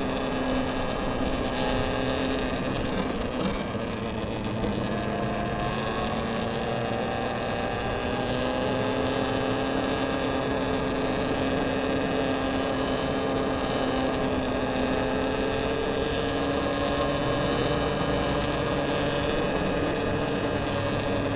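Talaria XXX electric dirt bike under way: a steady whine from its electric motor and drive, several pitches together, rising gently about a third of the way in and then holding as the speed changes, over a steady rushing noise.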